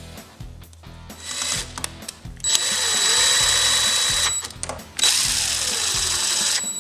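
Power screwdriver driving screws into a plastic clamp module: two runs of a couple of seconds each, the first about two and a half seconds in and the second about five seconds in, each with a steady high whine.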